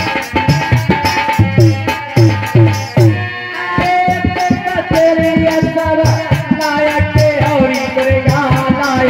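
Indian folk devotional music: a hand drum plays a fast rhythm with jingling percussion, and from about three and a half seconds a held, wavering melody line joins in.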